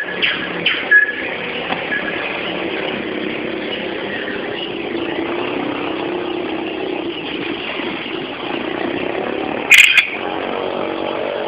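A steady engine drone that swells for a few seconds in the middle, with one sharp, loud crackle near the end.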